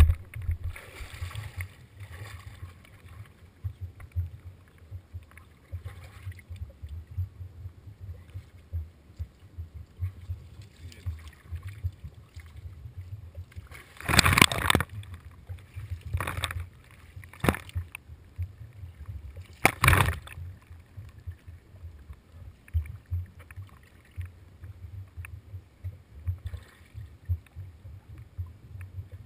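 Water splashing against a low-mounted action camera's housing in shallow water: a long loud splash about halfway through, two short ones soon after and another a few seconds later, over a steady low rumble.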